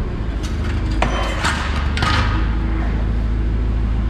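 A few sharp metal clanks and knocks from the rusted steel truck body as it is worked, most of them about one to two seconds in, over a steady low engine hum.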